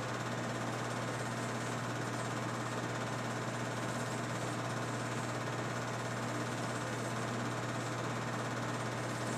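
8mm film projector running: a steady mechanical whirr and clatter over a constant low hum that does not change.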